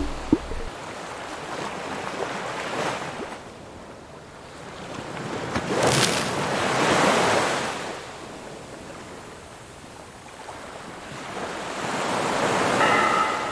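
Ocean waves washing in, rising and falling in three slow surges, the strongest about six seconds in. A brief pitched sound comes near the end.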